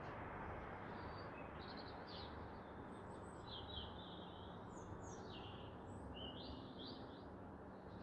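Birds chirping in a run of short, high notes over a steady background hiss.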